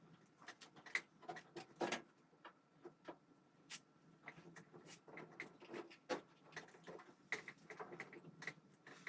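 Faint, irregular clicks and light taps of hands handling small parts, scattered unevenly a few times a second.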